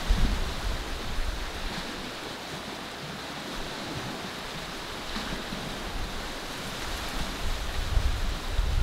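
Wind and the wash of small waves on open water: a steady hiss, with gusts buffeting the microphone as a low rumble near the start and again near the end.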